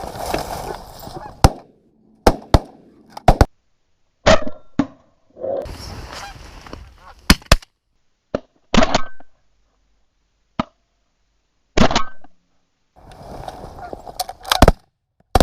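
Geese honking while shotguns fire about a dozen blasts, several in quick pairs and triples. The sound breaks off abruptly into silence between bursts.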